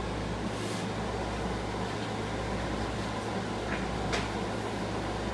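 Steady hiss with a constant low hum, like a fan or air conditioner running in a small room. A couple of faint light clicks come about four seconds in.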